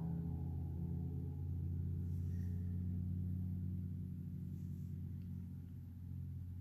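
A steady low hum of several held tones, slowly fading.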